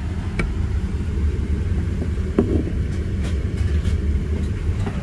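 Steady low rumble of a Boeing 787-9 airliner's cabin, from its engines and airflow, with a few faint clicks and a short knock about two and a half seconds in.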